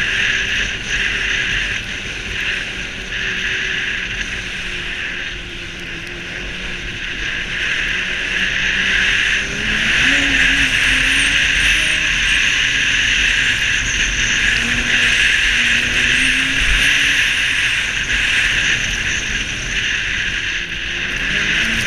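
Snowmobile engine running while the sled travels along a trail, mixed with track and wind noise. About ten seconds in the engine pitch rises and the sound gets louder as the rider speeds up, holding there.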